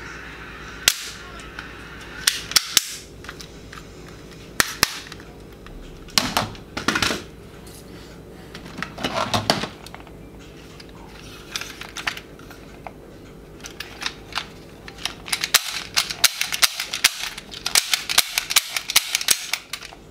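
Sharp plastic clicks from a toy revolver being worked by hand, its hammer, trigger and cylinder clicking, with some clattering of plastic toy guns. Clicks come singly at first and in a fast run near the end.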